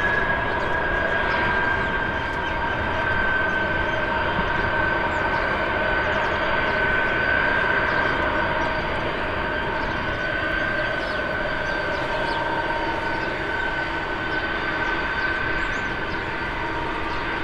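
Boeing 747 freighter's four turbofan engines running at taxi power: a steady rumble with a high whine that drifts slowly lower in pitch.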